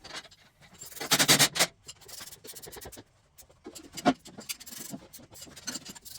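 Hand work on metal parts: rubbing and scraping with scattered light clicks and knocks. The loudest part is a rough scrape about a second in, lasting under a second, with a sharper knock about four seconds in.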